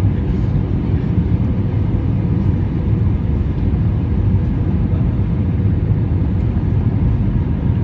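Airbus A320 airliner cabin noise in flight: a steady low rumble of engines and airflow that holds even throughout.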